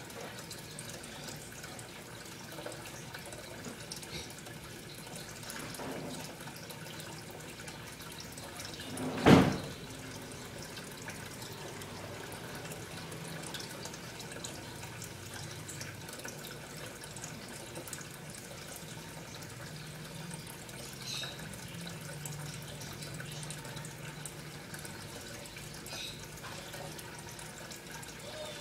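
Steady trickle of running water, with a single sharp knock about nine seconds in.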